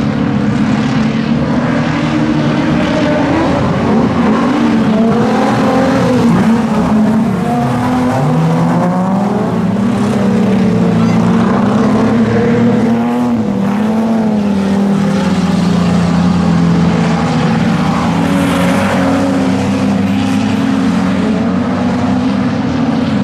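Several sedan race cars running flat out on a dirt speedway oval, their engines revving up and down with several pitches overlapping.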